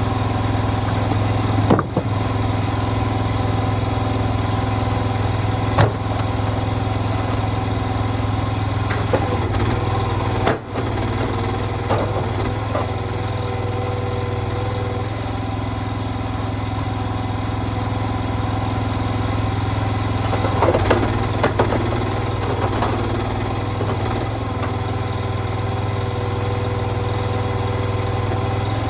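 An engine idling steadily throughout, with a few short sharp knocks and clatters over it.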